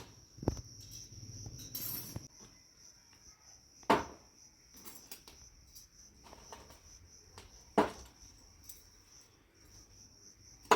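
Crickets chirping steadily, with a few sharp knocks several seconds apart.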